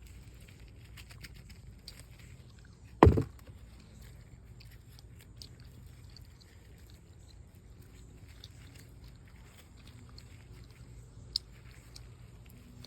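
Hands working through potting soil in a pot, with faint rustling and small clicks, and one loud thump about three seconds in.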